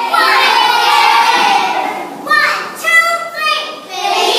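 A group of children singing together, loud and lively, their many voices overlapping.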